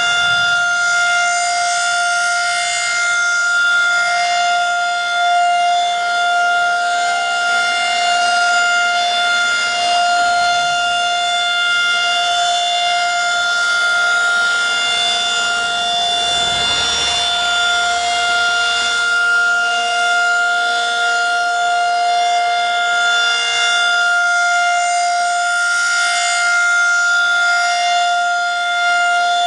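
Federal Signal 2001-SRN/DC outdoor warning siren sounding the Alert signal during its monthly test: one long, steady tone held at a constant pitch.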